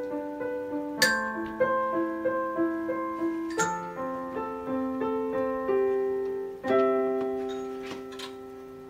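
Digital piano and glockenspiels playing the closing phrase of a slow pop ballad, note by note, then striking a final chord about two-thirds of the way in that rings on and fades away.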